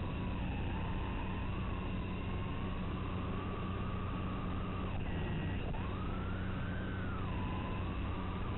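Small FPV quadcopter's motors whining, the pitch swinging up and down with throttle over a steady low hum. The pitch dips sharply about five seconds in, then climbs and falls back.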